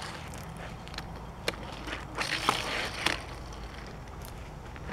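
Hot Wheels Bone Shaker die-cast toy car rolling along a plastic track, a steady light rolling noise broken by a few sharp clicks as it knocks against the track.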